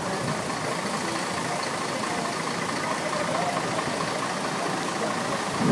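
Steady rush of wind and street traffic, with a vehicle engine running nearby.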